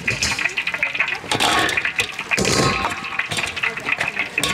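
Tofu deep-frying in a wok of hot oil, a steady sizzle, with voices chattering over it. Two brief rushing swells come about one and a half and two and a half seconds in.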